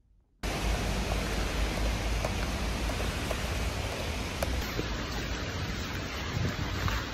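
Steady hiss of rain on a wet street, with a low rumble underneath, starting abruptly about half a second in.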